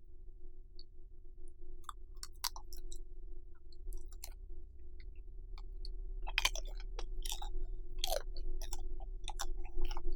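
Close-miked chewing of bacon-wrapped rice cakes, irregular wet clicks and crunches that come thicker in the second half, over a steady low electrical hum.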